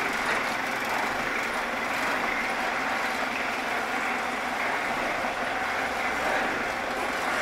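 A vehicle engine running steadily, an even hum with no change in pace.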